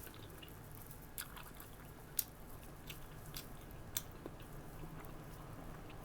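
Close-miked eating: a person chewing, with wet mouth smacks and clicks, about half a dozen sharp ones, the loudest about two seconds in, over a steady low hum.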